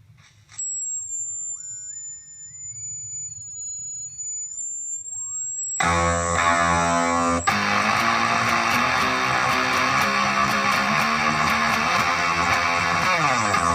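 Gibson SG '61 reissue on its neck pickup, played through a Zvex Fuzz Factory fuzz pedal into a Roland Cube 30 amp. First comes a high steady squeal with tones gliding up and down under it, typical of the pedal's oscillating 'weird' sounds. About six seconds in, loud, thick fuzzed guitar playing takes over, with a note sliding down near the end.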